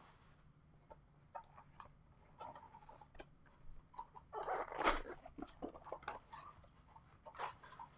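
Plastic wrap and foil card packs crinkling and tearing as a sealed box of trading cards is opened, with scattered small crackles and a louder stretch of rustling and tearing about four and a half seconds in.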